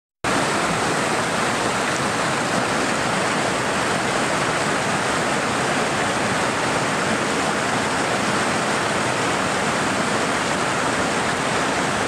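The Alamedin waterfall, 10–15 m high, pouring into its plunge pool: a loud, steady rush of falling water.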